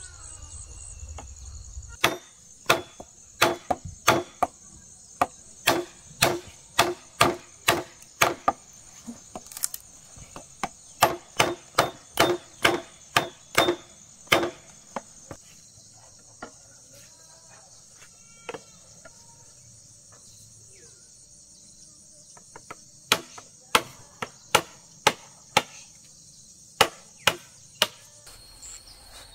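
A tool striking wood in quick runs of sharp blows, about two a second, stopping for several seconds in the middle, over a steady high insect drone.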